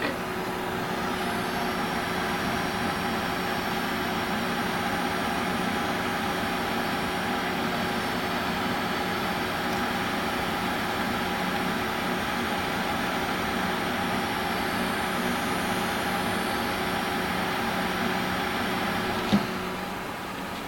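Water-cooled GTX 680 graphics card buzzing under full load: a steady buzz made of several held tones with a high whine above it, typical of coil whine. About 19 s in there is a click and the buzz dies away.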